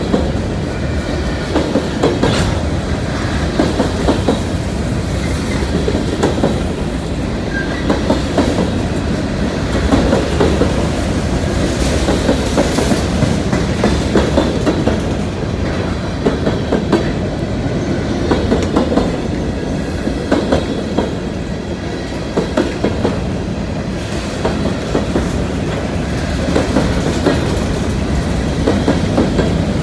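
Freight train of covered hopper cars rolling past close by: a steady rumble of wheels on rail with frequent clicks as the wheels cross rail joints.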